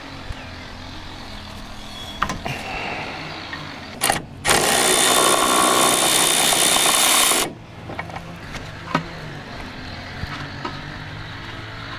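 A power tool runs in one loud burst of about three seconds, just after a brief blip. A few light metallic clicks come before and after.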